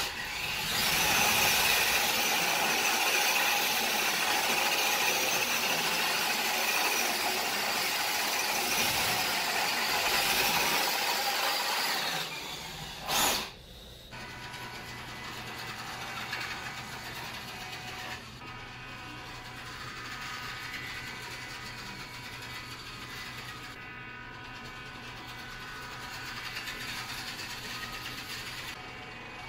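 Small electric motor and gears of a WPL D12 RC kei truck whirring as it drives on a hardwood floor: loud for about the first twelve seconds, a brief sharp knock about thirteen seconds in, then a quieter steady whir with a low hum.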